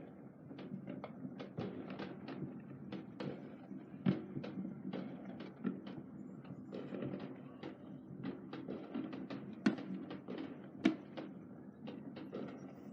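Neighbourhood fireworks going off: an irregular run of pops and bangs, several a second, over a low rumble. A few bangs stand out louder, one about four seconds in and two about a second apart later on.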